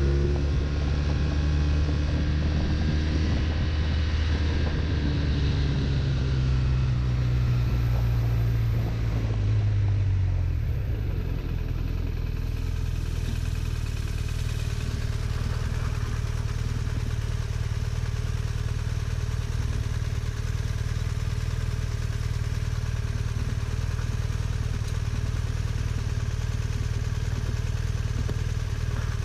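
BMW touring motorcycle's engine heard from on board while riding, its pitch rising and falling for the first ten seconds or so, then holding a steady note at constant speed, with wind rush over the microphone.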